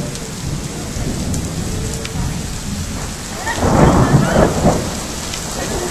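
Thunderstorm: rain falling with a steady low rumble of thunder, swelling into a louder peal about three and a half seconds in that lasts about a second.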